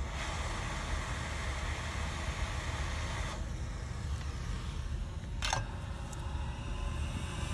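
Hot-air rework station blowing onto a circuit board: a steady hiss for about three seconds that then drops away, over a constant low hum. One sharp click about five and a half seconds in.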